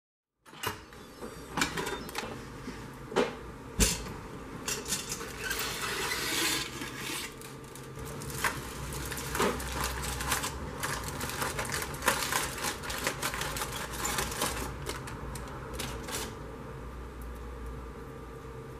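Clicks, knocks and crinkling aluminium foil as a foil-covered baking dish on a wire trivet is handled and its foil is peeled off. The sounds settle down about sixteen seconds in, leaving a low steady hum.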